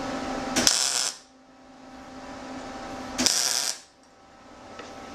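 MIG welding gun laying two quick tack welds on steel square tubing: two half-second bursts of arc crackle, about two and a half seconds apart. A steady hum with a few level tones runs under the first part.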